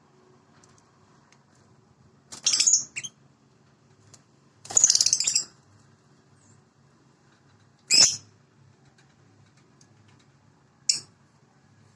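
A bird calling: four loud, high, raspy calls a few seconds apart, the second one the longest.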